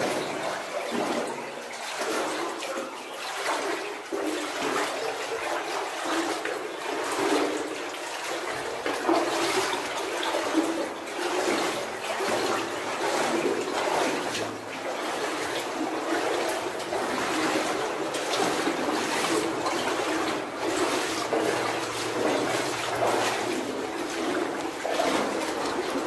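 Water sloshing and splashing without a break, with uneven surges about once a second, as of people wading through a flooded mine adit.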